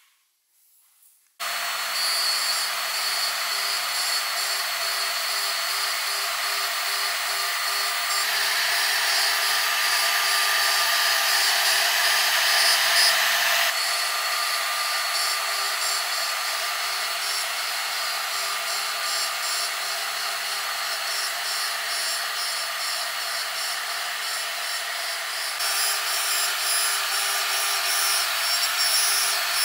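CNC router spindle with a small end mill running and cutting a row of small rectangular slots into a wooden board. It is a loud, steady machine sound with a few held tones over a hissing cut, starting abruptly about a second and a half in and shifting slightly in tone a few times.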